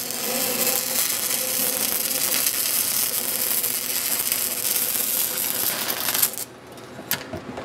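Stick-welding arc on a pipe root pass, crackling steadily, then breaking off abruptly about six seconds in. A couple of sharp clicks follow.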